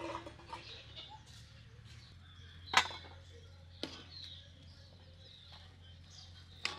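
Steel ladle clinking against a steel pan and thali as curry is served, three sharp clinks, the loudest a few seconds in and another near the end. Faint bird chirps in the background.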